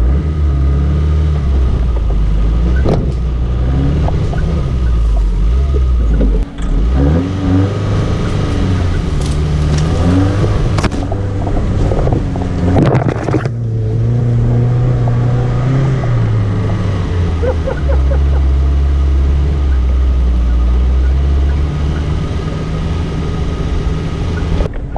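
Suzuki Vitara's engine running under load on a rough off-road track, its pitch rising and falling as the throttle changes. Knocks and rattles come from the vehicle, and branches scrape past the body in the middle stretch.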